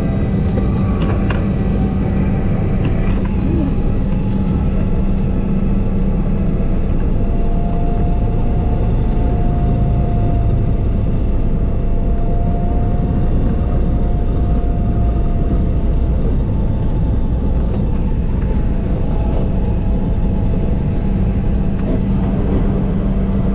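Single-engine ski-equipped light aircraft's piston engine and propeller running steadily as it taxis on skis across glacier snow, heard from inside the cabin as a loud, even drone.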